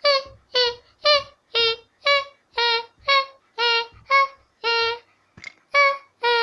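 A young girl singing a string of short, evenly spaced syllables, about two a second, each on a held note, with a brief pause about five seconds in.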